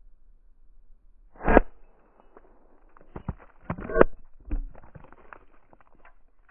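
A BB gun fires once with a sharp pop about one and a half seconds in. A run of clicks and knocks follows about two seconds later.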